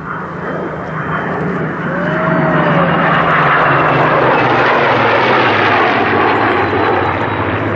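A formation of three P-51 Mustangs and an F-22 Raptor flying past. The Mustangs' V-12 piston engines drone under the jet's roar, and the sound swells to a loud peak midway. The engine pitch drops as the formation passes.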